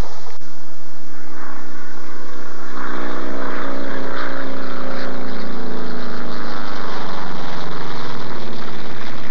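Gee Bee racing plane's radial piston engine and propeller flying past at speed: a steady drone that falls gradually in pitch as the plane goes by, after a short click near the start.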